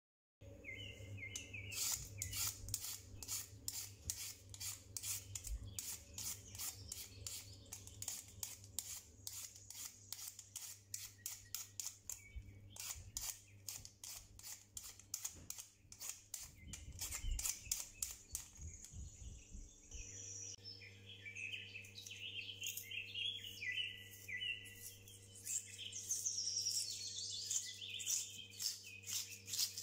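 A vegetable peeler scraping the skin off a raw potato in quick, repeated strokes, over a low steady hum. Bird-like chirping comes in near the start and again through the last third.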